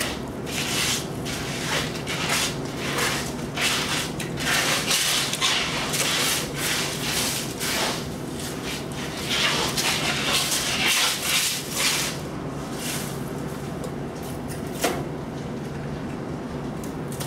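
Slippers scraping and sliding in short swishes on a thin sheet of ice, many in the first part and fewer later, with a single sharp click near the end, over a steady low hum.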